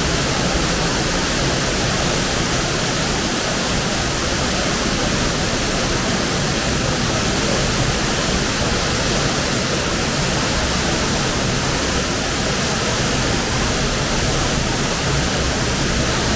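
Waterfall pouring into its pool in a loud, steady rush that does not let up.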